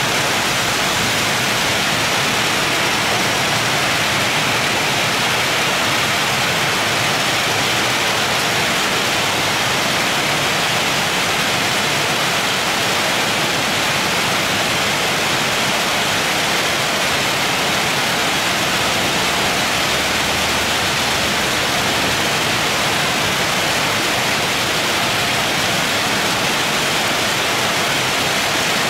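Very heavy rain pouring down as a steady, even hiss with no break.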